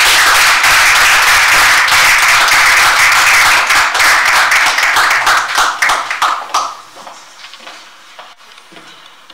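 A small audience applauding with hand claps, dying away about six to seven seconds in.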